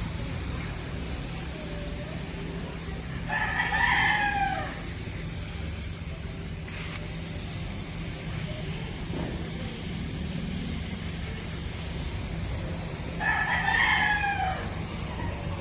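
A rooster crows twice, about ten seconds apart, each crow lasting about a second and a half, over a steady low machine hum.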